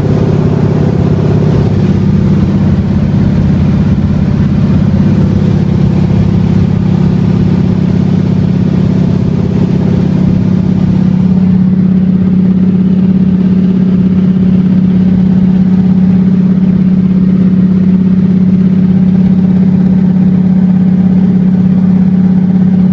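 Small plane's engine and propeller droning steadily, heard inside the cabin. About halfway through the sound turns duller, with one steady low hum standing out.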